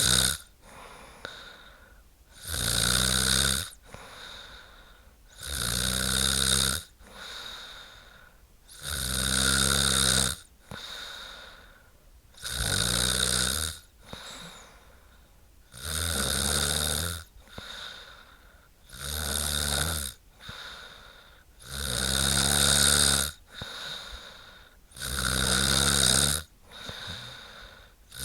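A sleeping woman snoring in a steady rhythm: a loud, rough snore about every three seconds, eight in all, with softer breaths between them.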